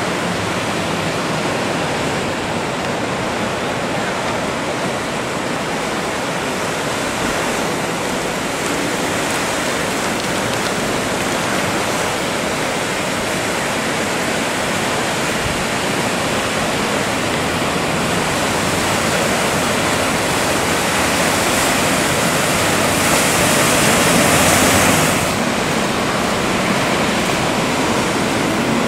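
Steady rush of breaking waves and churning sea water. It grows a little louder, then drops suddenly near the end.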